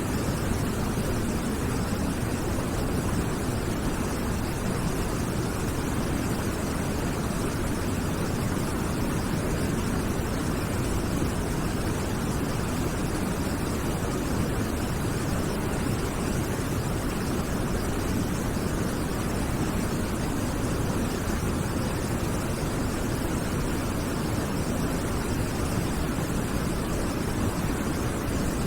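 Waterfall: a steady, deep rush of falling water that keeps an even level throughout.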